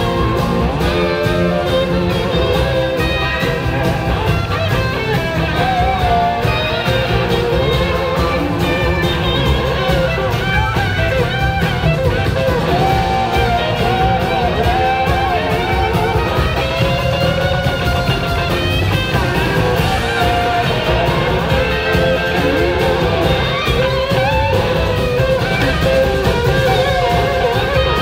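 Live rock band in an instrumental jam: two electric guitars trading lead lines, one with gliding slide notes, over steady drums and bass.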